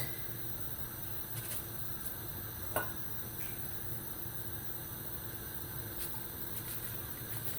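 Pot of aşure (wheat, chickpeas and beans) simmering on the stove, a faint steady noise, with one light clink about three seconds in.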